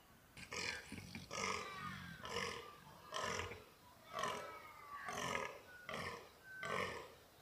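Fallow buck croaking in the rut: a steady series of about eight croaks, roughly one a second.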